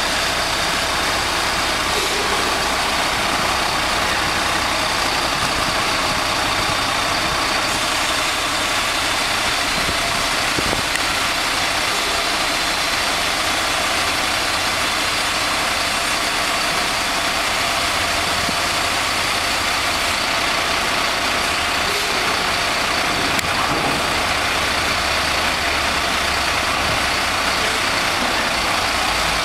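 Truck-mounted mobile crane's engine running steadily while the crane holds a suspended load.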